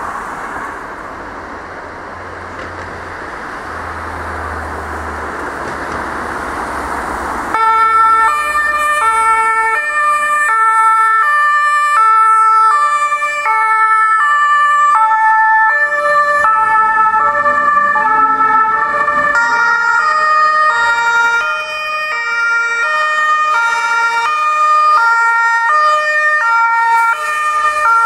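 German two-tone emergency sirens on fire engines pulling out on a call, switching between a high and a low tone about twice a second. They start abruptly several seconds in, and from about two-thirds of the way through a second siren joins out of step with the first. Before the sirens start there is a loud steady rushing noise with a low hum.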